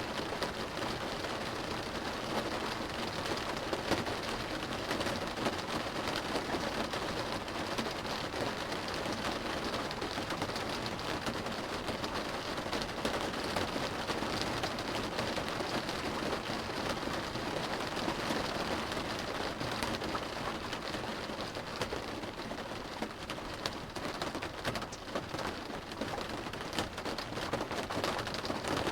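Steady rain drumming on a car's roof and windows, heard from inside the cabin: a dense patter of many small drop impacts.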